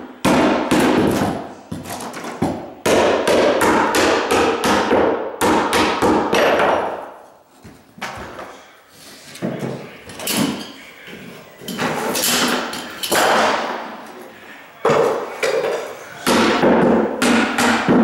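Hammer nailing wooden carpet tack strip down onto a wood subfloor: quick runs of sharp blows, several to each nail, with short pauses between runs as the strip is moved along the wall.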